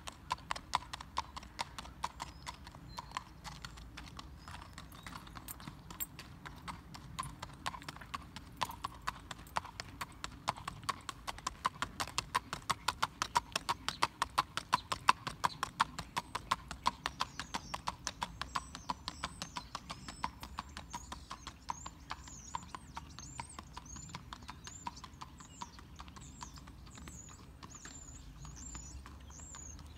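Hoofbeats of a gaited horse in a quick, even rhythm, loudest around the middle and fading over the last third.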